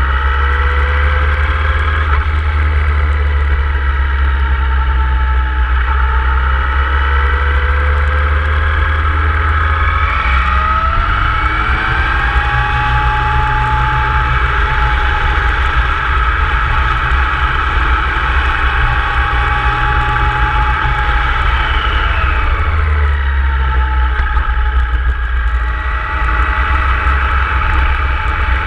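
Motorcycle engine under way, pulling steadily over a low rumble. Its pitch rises about a third of the way in, holds, then drops back about three-quarters of the way through.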